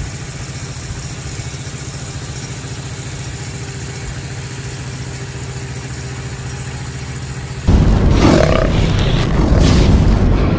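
Engine of an irrigation pump running steadily at constant speed, feeding a big-gun water sprinkler. About eight seconds in, a loud boom sound effect with music cuts in suddenly.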